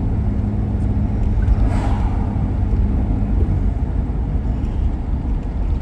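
Car driving along a city street: steady low road and engine rumble, with a brief rush of noise about two seconds in.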